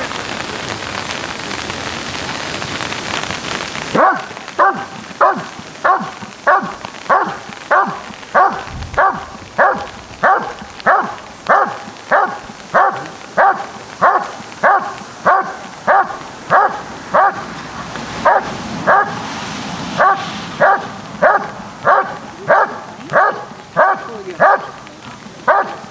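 German Shepherd Dog barking steadily at the blind, in the hold and bark of the Schutzhund/IPO protection phase: the dog has found the hidden helper and is guarding him. It gives loud, regular barks, about three every two seconds, starting about four seconds in, with one short pause about three quarters of the way through. Before the barking there is a steady hiss.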